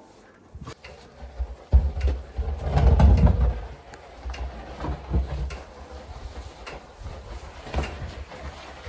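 Hens making soft cooing, clucking calls in the coop over rustling and knocks as fresh chaff is handled into the nest boxes, with a muffled low rumble loudest about two to three seconds in.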